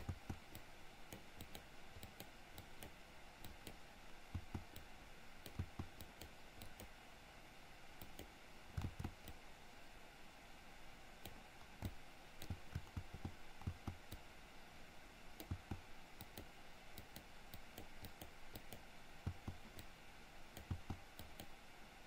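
Faint, irregular clicks of a computer mouse and keyboard, scattered throughout, over a steady low background hiss.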